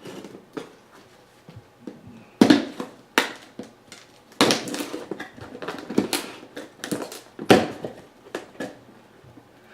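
Cardboard box and packaging being handled and opened: irregular crackling, scraping knocks and rustles, a few sharper ones standing out.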